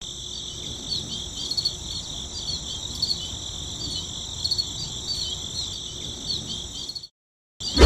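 Crickets chirping: a steady high trill with short chirps repeating about twice a second. It breaks off for half a second near the end.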